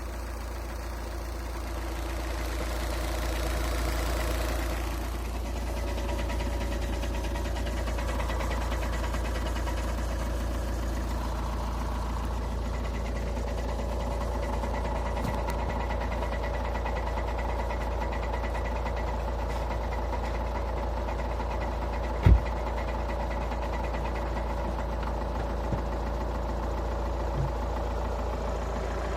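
Škoda Octavia A5's 2.0 TDI four-cylinder turbodiesel idling cold, with a knock that shows up when the engine is cold. A single loud thump about 22 seconds in.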